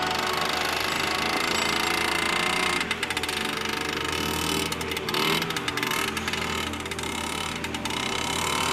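Small engine of a motorized kick-sled running with a fast, even popping as the sled is pushed off across the ice.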